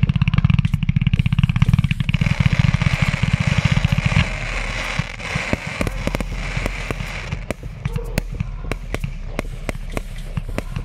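Fireworks battery going off: about four seconds of dense, rapid crackling with a hiss, then thinner, scattered crackles and pops.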